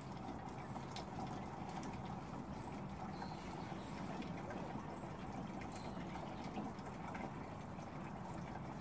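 Thin stream of spring water from a metal tap pouring steadily into a plastic water jug as it fills.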